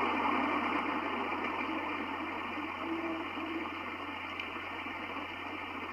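Steady room tone: an even background noise with a constant low hum, slowly getting a little quieter.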